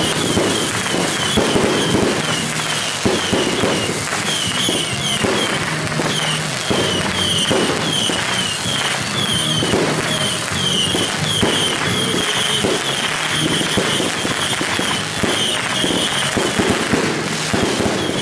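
Fireworks display: many shells bursting and crackling in quick succession, a continuous barrage with no pause.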